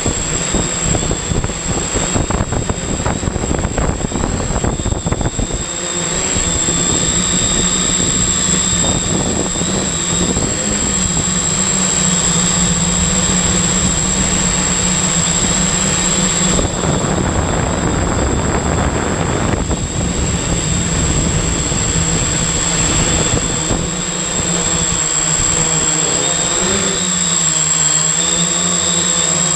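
Octocopter's eight electric motors and propellers buzzing steadily, heard from a camera mounted on the craft, with a thin high whine above the buzz. The sound is rougher for the first several seconds, and the pitch wavers near the end as the motors change speed.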